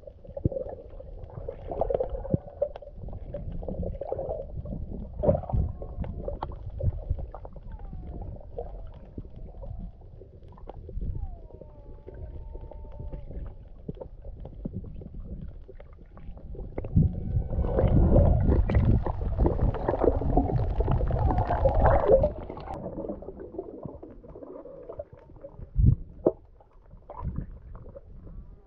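Underwater sound picked up by a camera below the surface: a muffled rumble of moving water with scattered knocks as the swimmer moves. A few faint rising and falling whistles come about a third of the way in, and past the middle a louder rush of water and bubbles lasts about five seconds.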